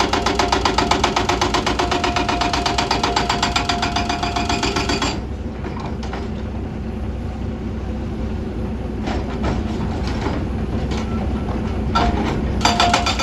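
Excavator working hard with a rapid, even clatter and a steady whine. About five seconds in it eases to a lower rumble with a few sharp knocks. The clatter starts again near the end.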